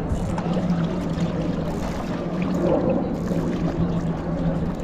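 A small boat's motor running at a steady hum, with water sloshing and splashing around the hull.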